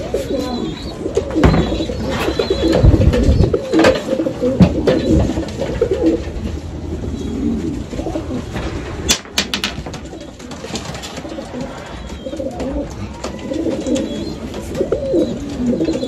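Many domestic pigeons cooing continuously in a loft of wire cages, with a few sharp knocks and rattles, including a quick cluster about nine seconds in.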